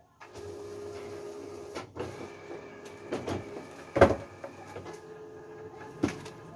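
A stack of thick card stock is handled, fanned and tapped together, giving papery rustling and a few sharp knocks; the loudest knock comes about four seconds in and another near the end. Underneath runs the steady hum of a Ricoh DX2430 digital duplicator.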